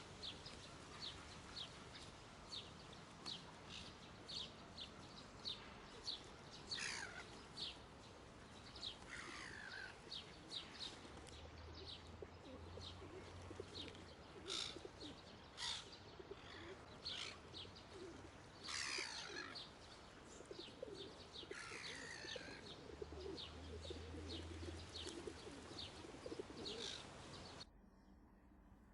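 Wild birds calling: a short high chirp repeated about two to three times a second, with several longer calls that fall in pitch. The sound cuts off near the end.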